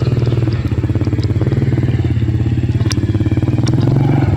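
An engine running steadily with a fast, even pulse, and a couple of sharp clicks near the end.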